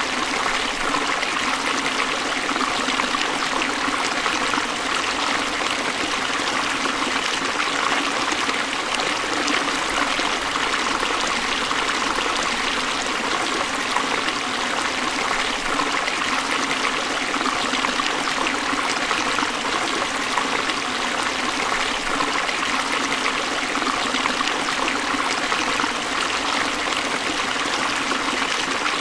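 A forest stream flowing steadily over rocks, a continuous rushing and trickling of water.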